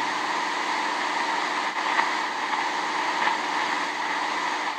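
Steady hiss and static from a shortwave receiver tuned to a weak, fading broadcast signal on 15345 kHz, with a faint low hum under it.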